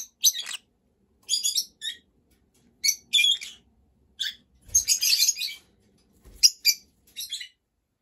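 Green-cheeked conure giving a string of short, high-pitched chirps and chattering calls in irregular bursts, some in quick pairs.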